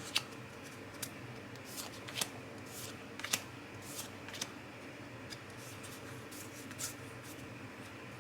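Trading cards being handled and flipped through: irregular sharp snaps and short swishes of card stock, loudest near the start and about three seconds in.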